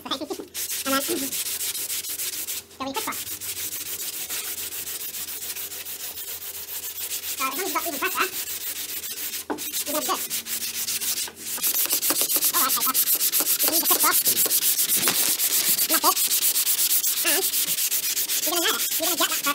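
Dry hand block sanding of polyester spray filler on a car door panel: sandpaper on a flexible sanding block rasping in quick back-and-forth strokes. There are a few short pauses, and the strokes get louder about halfway through.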